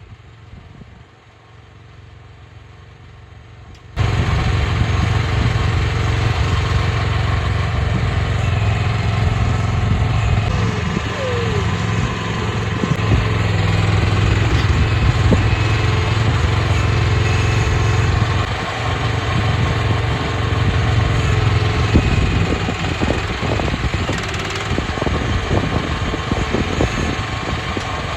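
Mini excavator engine running steadily while working, with scattered knocks and clanks. The sound is quieter at first and jumps abruptly louder about four seconds in.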